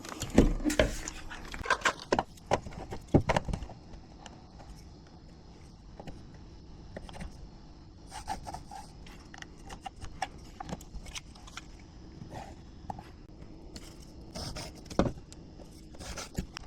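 Metal hardware and tools clattering and clicking as they are handled. The clatter is busiest in the first few seconds, then comes as scattered clicks with a louder knock near the end.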